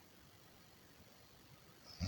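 Near silence: the quiet gap between two snores.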